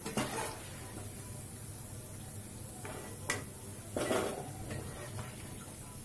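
Steel slotted skimmer clinking and knocking against a steel plate and the rim of a kadhai as fried pakoras are scooped out of the oil and tipped onto the plate: one knock just after the start, a sharp click a little after three seconds, and a few more about four seconds in, over the low sizzle of frying oil.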